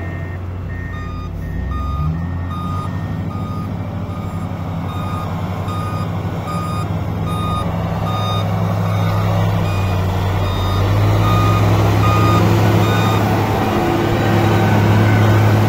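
Reversing alarm on a heavy earthmoving machine, beeping about twice a second over the machine's steady diesel engine. The beeps fade out near the end as the engine grows louder.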